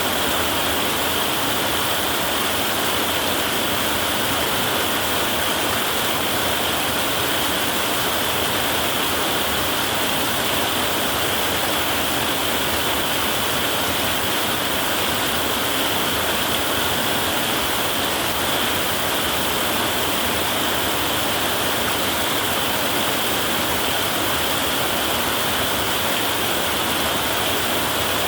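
Heavy rain drumming steadily on a tin roof, a dense even hiss with no let-up and no thunder.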